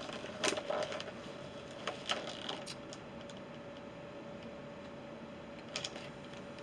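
Scattered clicks and rustles of a package being opened and its contents handled, a few at a time with pauses between, over a faint steady hum.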